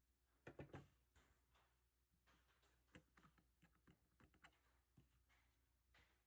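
Quiet clicks, taps and handling noise as gloved hands work the small metal parts of a North American Arms mini revolver. The loudest is a short cluster of clicks about half a second in, followed by scattered light clicks a few seconds later.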